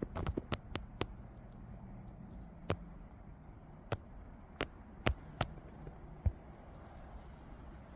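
Scattered sharp clicks and taps, several close together in the first second and then about one a second, over a low steady hum.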